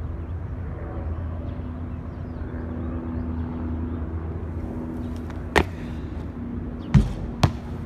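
Steady low outdoor hum with a held tone, like distant traffic or machinery, and three sharp knocks in the last few seconds, the second the loudest: a basketball bouncing on the concrete court.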